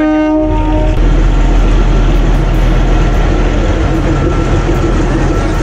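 Narrow-gauge Kalka–Shimla diesel locomotive pulling into the station close by. Its multi-tone horn sounds until about a second in, then the loud, steady rumble of the locomotive and train rolling past.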